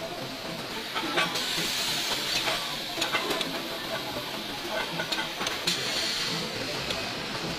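Band saw cutting a cast alloy car wheel: a steady hiss of machine noise with many short, sharp metallic clicks and ticks scattered through it.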